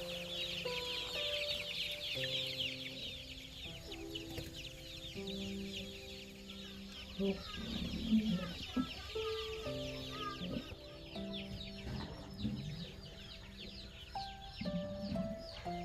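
Chickens: a dense, continuous run of high peeping with some clucking about halfway through, over background music with slow sustained notes.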